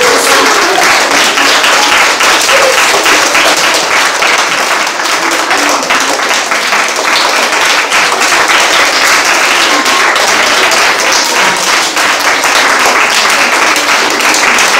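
An audience of children applauding: steady, dense clapping.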